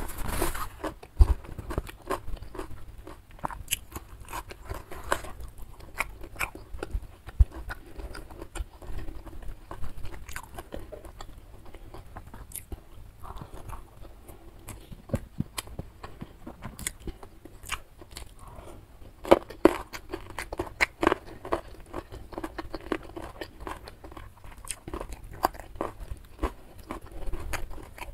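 Close-miked ASMR chewing of a nasi padang meal eaten by hand: irregular crunchy bites, wet mouth clicks and smacks, with the loudest cluster of bites about two-thirds of the way through.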